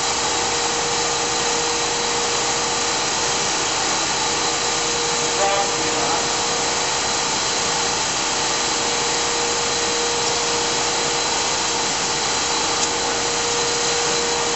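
GMP SG-1000/400 hydraulic surface grinder running, with its table traversing back and forth: a steady machine noise with one steady tone through it.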